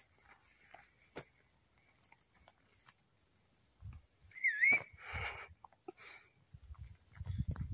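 Mostly near silence, broken about four and a half seconds in by one short whistle that dips and then rises in pitch. Faint low rumbling follows near the end.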